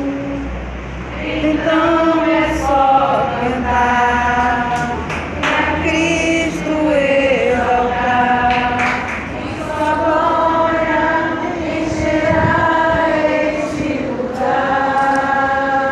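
A church congregation singing together, a slow song in phrases of long held notes.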